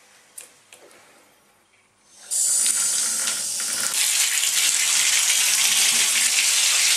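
Bath mixer tap handled with a couple of small clicks, then a little over two seconds in the water comes on suddenly and runs full into the bathtub, a loud steady gush.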